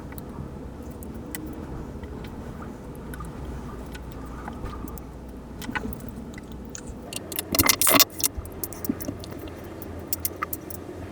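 Small metal watch parts and tools clicking and scraping as an analog quartz wristwatch is taken apart, sparse light clicks with a loud burst of rattling clicks about three-quarters of the way through, over a steady low hum.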